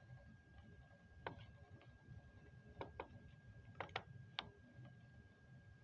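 Near silence with six faint, sharp clicks in the middle stretch, some in quick pairs, over a faint steady high-pitched whine.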